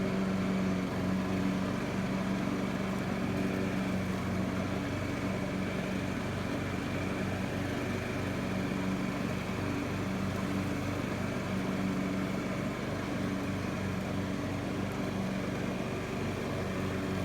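Troy-Bilt Pony riding lawn mower's engine running steadily, an even hum with no change in speed.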